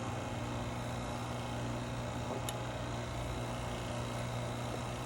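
Steady hum of a running electric motor, with a strong low drone and an even whirring noise, with one faint click about halfway through.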